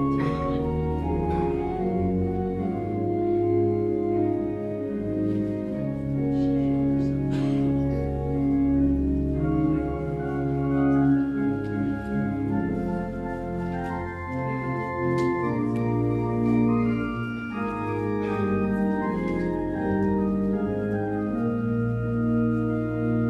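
Church organ playing a postlude: held full chords that change every second or two over deep bass notes.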